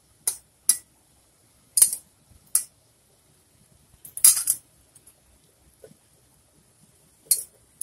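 Short, sharp metal clinks against a metal wok, spaced irregularly, as fried pointed gourd (patol) pieces are added to a yogurt gravy; the loudest is a double clink a little past the middle.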